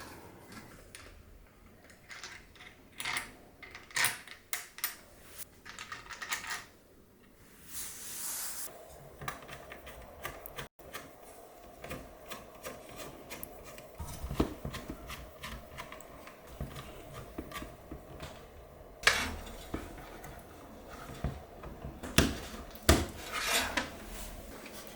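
Hands handling and fitting computer parts: irregular clicks, taps and rubbing of metal and plastic, with a few sharper knocks in the second half.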